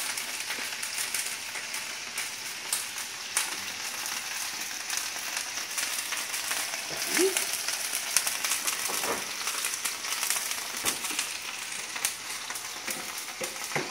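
Ladyfish fillet frying in hot oil in a skillet: a steady sizzling hiss with small crackles.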